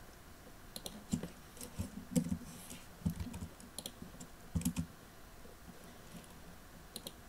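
Computer keyboard keystrokes: short irregular runs of typing, each key a click with a dull thud, for about five seconds, then a pause and two quick taps near the end.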